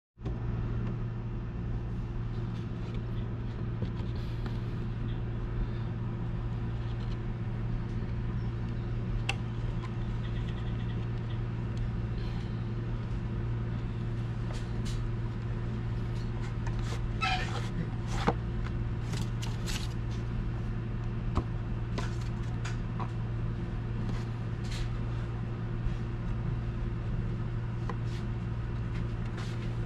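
A cardboard watch box and its clear plastic case being handled and opened: scattered clicks, taps and crinkly rustles, busiest in the middle and latter part. Underneath runs a steady low hum.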